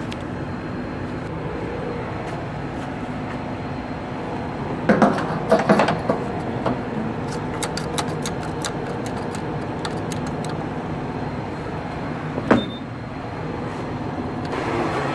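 Green-handled diesel fuel nozzle being handled at a semi truck's tank, with a cluster of metallic clicks and clanks about five to six seconds in and one sharp clank near the end, over a steady mechanical hum.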